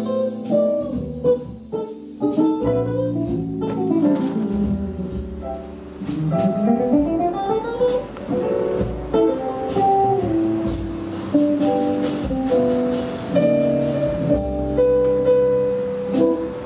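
Guitar music played back through a home-built audio power amplifier, with notes sliding down about four seconds in and a long upward slide a couple of seconds later.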